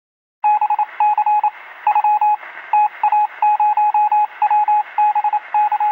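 Electronic beeping: a single mid-pitched tone keyed on and off in quick clusters of short beeps, like Morse code, over a faint radio-like hiss, starting about half a second in.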